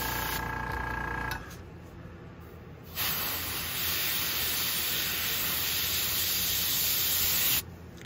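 Airbrush spraying paint onto a fishing lure: a steady hiss of air that stops about a second and a half in, starts again about three seconds in and runs until just before the end. A faint steady whine sits under the first stretch of hiss.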